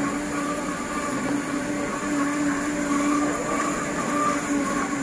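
Two countertop blenders running together, blending drinks: a steady motor hum with a sustained tone.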